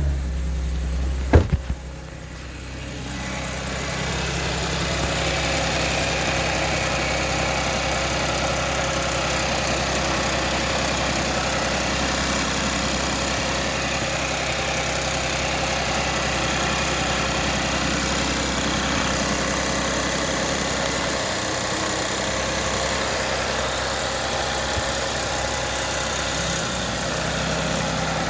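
Audi S4 engine idling steadily after a single sharp click about a second in.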